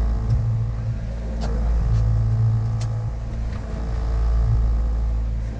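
Fishing boat's engine running steadily under way, a low drone.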